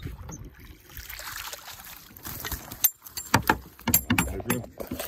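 Water sloshing and splashing around a landing net as a hooked brook trout is brought in beside a boat, with a quick run of sharp knocks about three seconds in.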